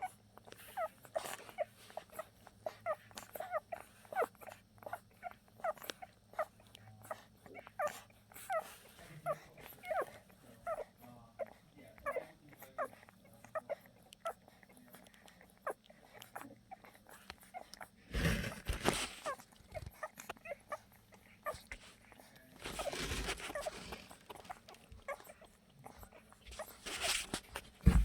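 Week-old mini Bernedoodle puppies nursing, making rapid little squeaks and whimpers, two or three a second. There are a few louder bursts of rustling about two-thirds of the way through and near the end.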